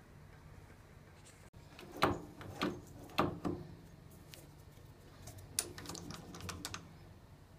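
Sharp metal clinks and knocks of tooling being handled at a manual lathe: four knocks in quick succession, then a looser run of lighter clicks a few seconds later, over a faint steady hum.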